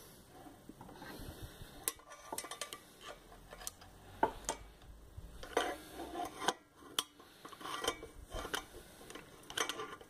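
Irregular light metallic clicks, taps and scrapes of a screwdriver working inside a refrigerator compressor's steel housing, as the motor's wire plug is pushed onto the compressor's electrical terminal.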